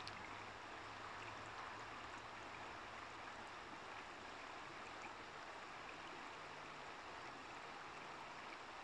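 Shallow river water running over stones and riffles: a faint, steady rushing.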